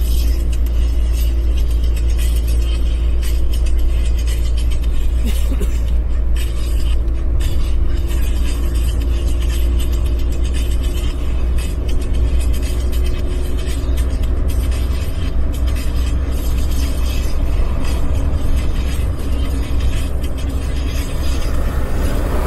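Cabin noise of a vehicle travelling at speed: a loud, steady low rumble of road and engine noise with a faint steady hum running under it.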